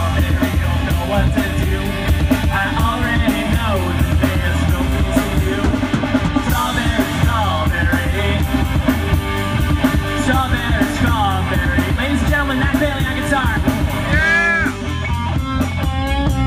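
A live rock band playing through a PA: electric guitars and a drum kit with a singer's voice over them, amplified and continuous.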